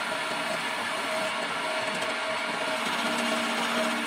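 Homemade electric wood lathe running steadily while a hand-held chisel scrapes the spinning wooden stair baluster, with a constant hum. A lower tone joins about three seconds in as a flat block is pressed against the turning wood.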